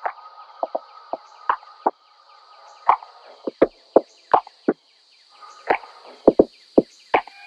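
Rattling of a moving train carriage: irregular sharp clicks and knocks, one to three a second, over a steady faint high hiss.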